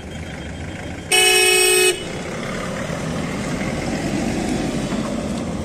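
A vehicle horn sounds one steady blast of just under a second, about a second in, followed by a vehicle engine running close by.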